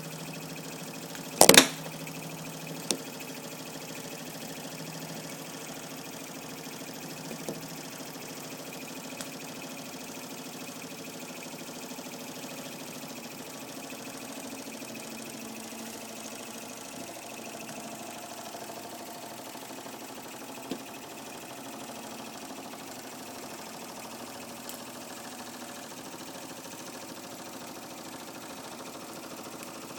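Mamod SE2 toy steam engine running steadily under steam, driving a Mamod grinder, a smooth even hum. A single loud sharp click about a second and a half in, with a few faint ticks later.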